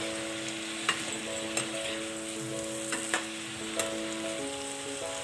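Chopped bottle gourd and tomato sizzling in oil in a non-stick kadai as a steel spatula stirs them, the spatula clicking against the pan several times.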